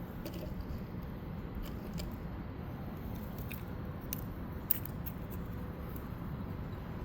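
Light clicks and handling noises from objects being handled, over a steady low hum, with one sharper click nearly five seconds in.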